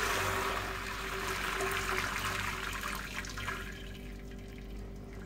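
Water pouring into a metal cooking pot, a rushing splash that starts suddenly and fades out over about three and a half seconds.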